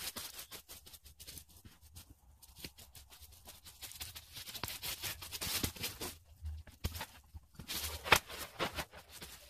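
Dry leaf litter and twigs crunching and crackling irregularly as the forest floor is cleared, with one louder crack a little after eight seconds in.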